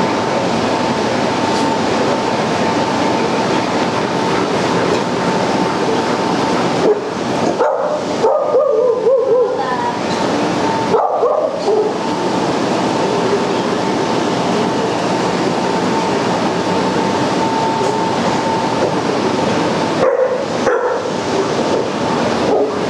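A pack of big dogs barking and yipping at once in a continuous din, with whining that slides up and down in pitch about eight seconds in and again near the end. A faint steady tone runs underneath.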